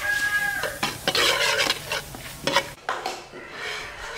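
Metal ladle stirring and scraping through a pot of braising sauce with chopped garlic, knocking against the metal pot several times, over a sizzle from the hot pot.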